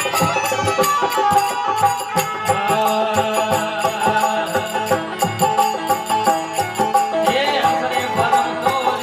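Folk devotional bhajan music in an instrumental passage: an electronic organ holds sustained melody notes over a fast, steady percussion beat.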